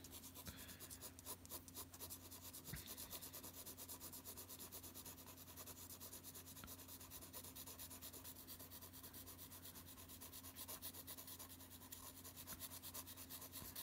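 Graphite pencil shading on drawing paper, held on its side: faint, rapid back-and-forth scratching strokes, several a second.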